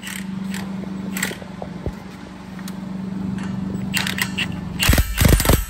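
Steady low hum with scattered metal clicks and taps, then about five seconds in an impact wrench starts hammering in loud, rattling bursts, running down bolts on the tractor's planetary hub.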